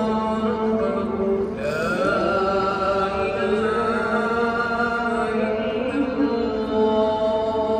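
A man's voice chanting in Arabic through the mosque's loudspeakers, in long, melodic held notes with a rising slide about two seconds in: a call that opens the congregational Maghrib prayer.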